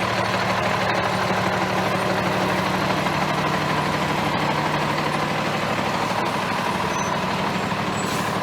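Engine of a large vehicle such as a truck, idling steadily at an even pitch.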